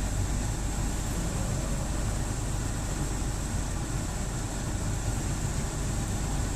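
The 2010 Subaru Impreza's replacement 2.5-litre naturally aspirated flat-four engine idling steadily, with a thin steady high tone over it.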